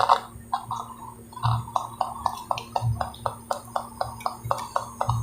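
Audio output of a USB Bluetooth MP3 panel under test through its speaker: a rapid, regular stuttering of short pulses, about four a second, over a steady low hum. The repairer still finds some fault in the sound.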